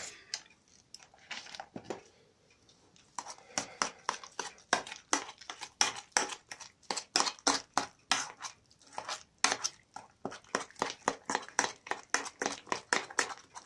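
A metal spoon clinking and scraping against an enamel bowl as a thick mix of cottage cheese, eggs and sugar is beaten by hand. A few soft taps at first, then from about three seconds in quick repeated strokes, several clinks a second.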